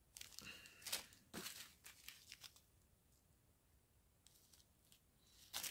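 Faint crinkling of small clear plastic zip-lock bags of diamond painting drills being handled: a few short rustles in the first two and a half seconds, then near silence.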